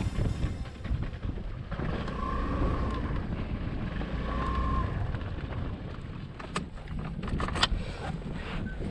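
A 250cc motorbike's engine running at low speed as the bike rolls slowly over gravel and comes to a stop, with wind on the microphone. A few sharp clicks and knocks come near the end.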